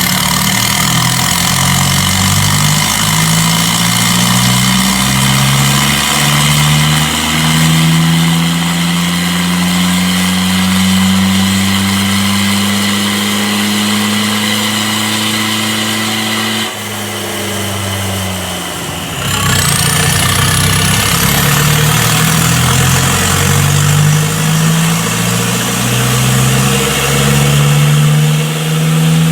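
Mahindra Roxor's four-cylinder turbo diesel, exhausting through a 3-inch straight dump pipe off the turbo, pulling hard on a chassis dyno. The engine note climbs in steps as it goes up through the gears, then holds one long rising pull. It backs off about 17 seconds in with the pitch falling away, then climbs through the gears again with a faint rising turbo whistle.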